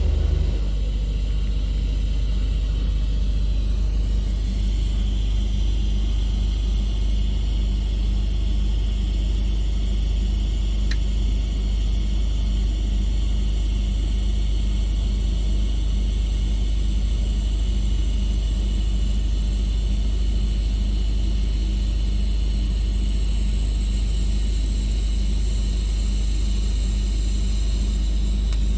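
Steady low hum with a faint high hiss from TIG welding of a DN50 steel district-heating pipe joint.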